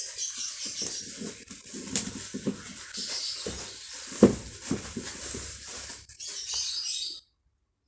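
Stick (MMA) welding arc from a Lakoni Falcon 160E inverter welder, crackling and hissing irregularly with a sharp crack about four seconds in. It cuts off suddenly about seven seconds in as the arc is broken.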